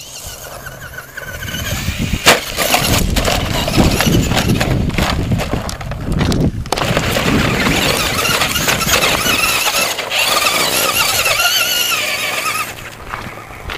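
Traxxas Slash 2WD RC truck's brushed electric motor whining, rising and falling with the throttle, over the crunch and rattle of the tyres and chassis on loose rock and gravel. A sharp knock about two seconds in is the loudest moment.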